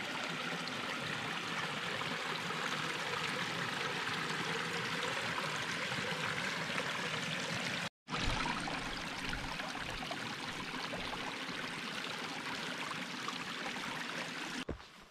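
Small hillside stream running steadily through a narrow channel in the grass. It breaks off for an instant about eight seconds in and grows quieter near the end.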